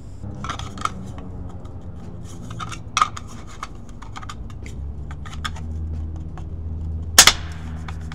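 A 3D-printed PLA mount scraping and clicking as it is pushed down over a helicopter's metal ballast box, its plastic wings spreading to snap over the rivet heads. The loudest snap comes near the end. A steady low hum runs underneath.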